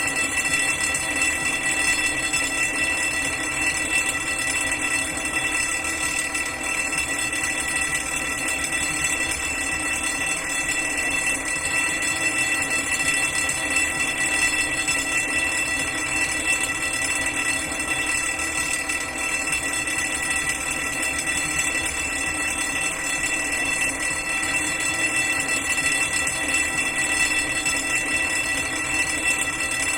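Electric fire alarm bell ringing loudly without a break, a steady high metallic ring.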